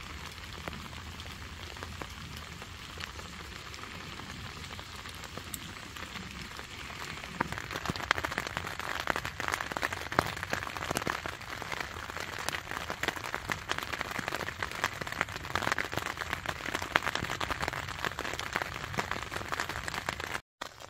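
Light, steady rain pattering on a tent's rainfly, a dense patter of small drop taps that grows louder and thicker about seven seconds in.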